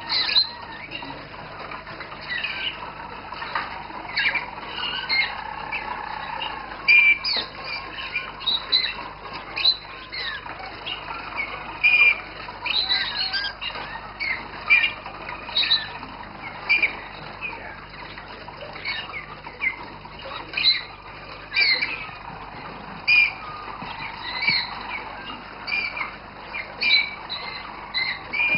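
Roller canaries calling with many short, sharp chirps at irregular intervals, over a faint, softer, lower warble.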